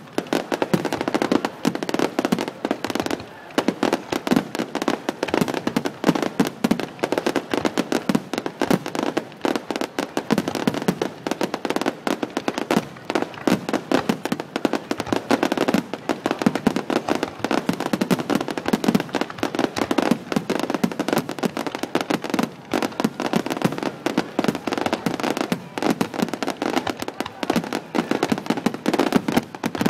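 Fireworks finale: a dense, continuous barrage of shells bursting, with several sharp bangs a second overlapping one another throughout.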